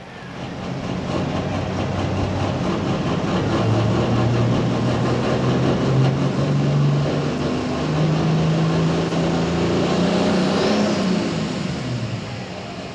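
Turbocharged John Deere pro stock pulling tractor's diesel engine running under heavy throttle, its pitch climbing steadily for several seconds and then dropping away near the end.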